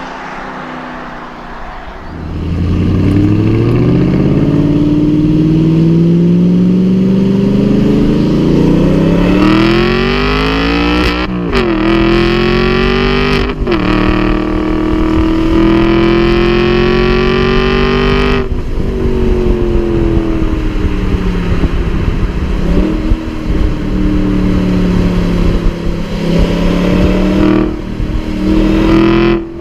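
Aston Martin V8 Vantage's 4.3-litre V8 accelerating hard, its note climbing with two quick upshifts a little over a third of the way in. It then holds high revs before easing off and running at lower, steadier revs with small blips.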